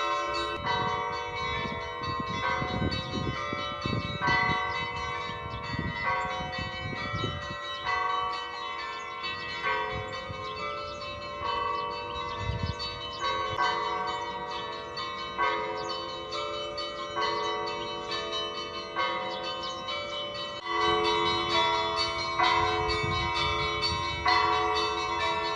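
Church bells ringing: several bells of different pitches struck over and over in a repeating pattern, each stroke ringing on and overlapping the next, over the steady ring of a lower bell. A low rumble comes and goes underneath at times.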